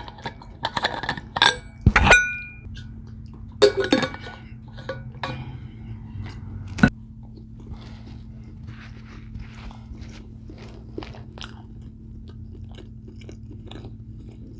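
Close-miked chewing and crunching of food, with a few sharp, louder clicks in the first seven seconds, then softer small mouth sounds over a steady low hum.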